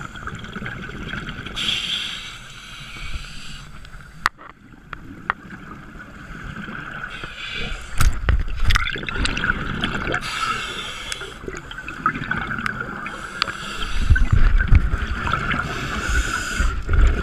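Scuba regulator breathing heard underwater: a hissing inhalation and a gurgling rush of exhaled bubbles every few seconds, the bubble rushes loudest in the second half. A few sharp knocks about a third and halfway through.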